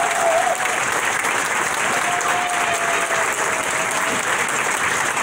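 Audience applauding steadily after a solo cello performance, with a thin held whistle-like tone at the very start and again through the middle.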